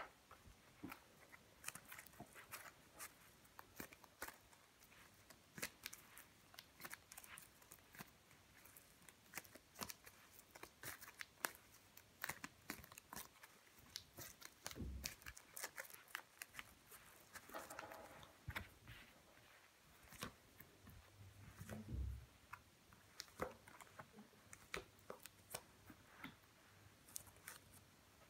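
Playing cards handled and dealt onto a cloth mat: a long run of soft clicks, flicks and slides as cards snap and brush against each other, with two dull thumps midway.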